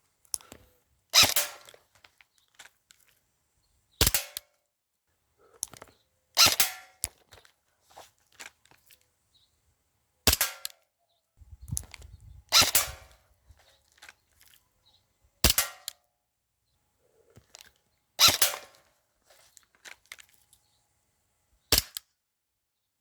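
Airsoft guns firing single shots, about eight sharp pops a few seconds apart, with quieter handling clicks in between.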